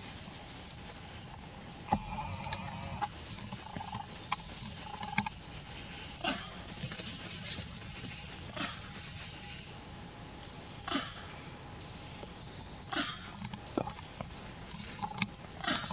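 Forest insects trilling: a high-pitched, rapidly pulsed trill that comes in bursts of one to two seconds, each followed by a short gap, over and over. Brief sharp clicks or rustles break in about every two seconds.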